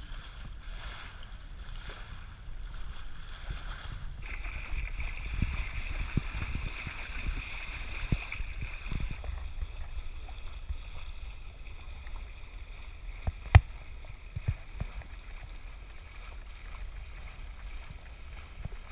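Wind buffeting the microphone and water washing past a sailboat's hull: a steady low rumble with a hiss that changes character abruptly about four and nine seconds in. A single sharp knock about thirteen and a half seconds in.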